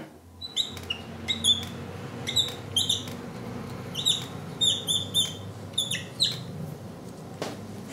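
Dry-erase marker squeaking on a whiteboard as a word is written: a string of short, high squeaks, one for each pen stroke, with brief gaps between them.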